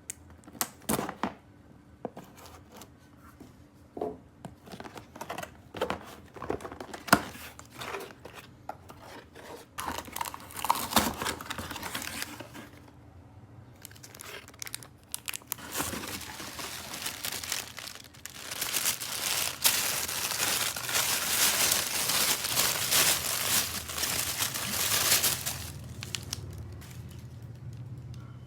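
Toy packaging being unwrapped: scattered taps and clicks at first, then plastic wrapping crinkling and tearing, in a long dense stretch through the last third.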